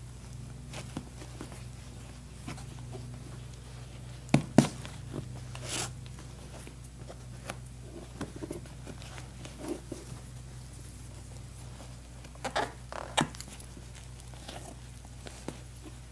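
Hand-stitching leather upholstery with a curved needle: thread drawn through the leather, fingers rubbing and pressing the leather, with scattered sharp clicks and taps, the loudest a pair about four and a half seconds in. A steady low hum runs underneath.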